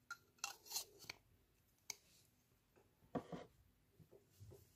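Plastic lipstick tube clicking and tapping as it is handled: a few sharp clicks in the first second or so, another near two seconds, and a louder, duller knock a little after three seconds.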